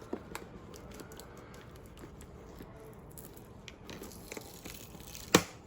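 Cardboard and plastic packaging being handled and worked open: faint scattered crinkles and clicks, with one sharp knock near the end.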